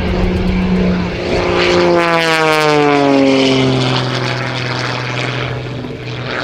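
Wolf Pitts Pro aerobatic biplane's engine and propeller passing close. The drone drops sharply in pitch about two seconds in as the plane goes by, then carries on at the lower pitch.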